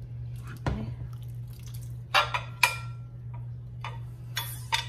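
A ladle knocking against a pot and a ceramic bowl as soup is served: a few sharp clinks, two close together about two seconds in with a short ring after them, and two more near the end, over a steady low hum.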